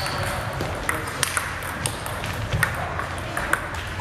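Table tennis ball clicking off paddles and the table during a rally: many sharp, short hits at an uneven pace.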